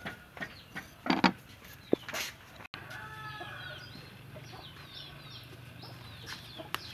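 Chickens clucking and giving short high peeping calls, with a couple of sharp knocks in the first two seconds and a low steady hum underneath from about three seconds in.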